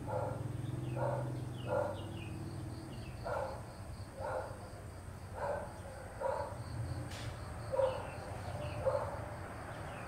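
A dog barking repeatedly, about once a second.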